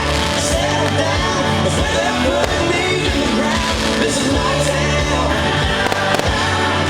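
A song with a singing voice over a band, with a steady bass line, played loudly over outdoor loudspeakers.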